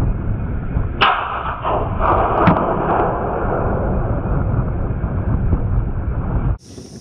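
Wind buffeting the microphone, a steady low rumble, with a sharp knock about a second in and another about two and a half seconds in; the sound cuts off abruptly near the end.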